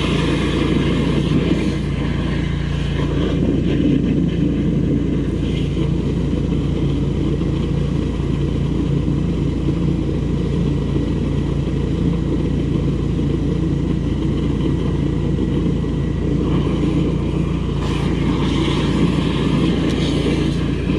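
Drain jetter's engine-driven pump running steadily, a constant hum, while the high-pressure jetter hose is fed into the sewer pipe.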